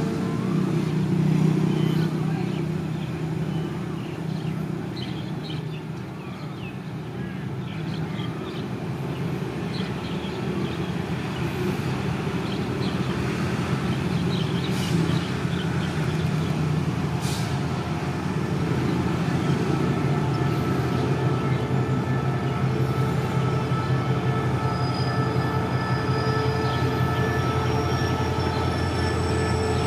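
Diesel-electric locomotive of the SRT's CRRC class (No. 5212) drawing a passenger train slowly into a station. Its engine drone grows louder as it nears, with two sharp clicks about halfway through. High-pitched wheel squeal comes in over the last few seconds.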